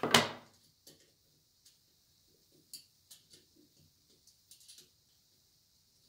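A loud clatter as a hard black plastic part is set down on a wooden workbench, followed by irregular light clicks and taps as the band saw's cover fittings are handled.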